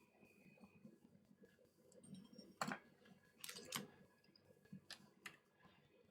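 Near silence, broken by a handful of faint, short clicks and taps spread through the middle and later part.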